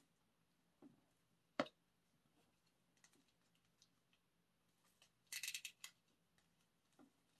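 Quiet handling of a shrink-wrapped CD digipack album and a small cutter: a sharp tap about a second and a half in, then a quick rattle of small clicks and crackles about five seconds in as the cutter is worked at the album's plastic wrap.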